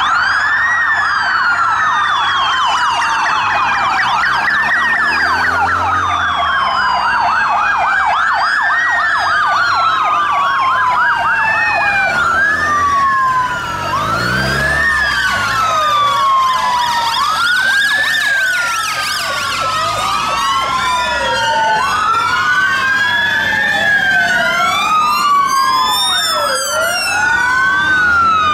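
Several police sirens wailing. At first one slow wail rises and falls about every four seconds, then several sirens from the passing police motorcycles and cars overlap out of step, some sweeping faster.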